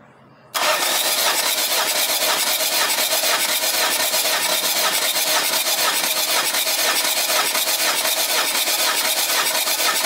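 Mitsubishi Triton's 2.5-litre 4D56U turbo-diesel being cranked over by its starter motor for a compression test on cylinder three, with the gauge fitted through a dummy injector. It starts suddenly about half a second in and runs on steadily with an even pulse.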